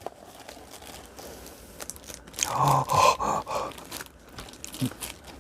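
Cardboard and plastic packaging crunching and crinkling as the figure's packaging insert is worked out of its box, with scattered small clicks and rubbing. The handling gets louder for about a second, roughly two and a half seconds in.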